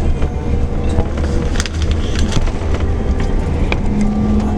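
Scania K410 coach under way, heard from inside the cabin: a steady low engine and road drone with light rattles. A steadier hum sets in near the end.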